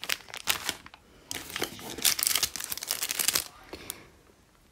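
Clear plastic packaging bags crinkling and rustling as they are handled, in quick irregular bursts that die down near the end.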